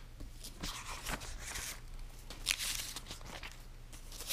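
Paper pages of a thick paperback service manual being turned and handled: several short rustles, the loudest about two and a half seconds in.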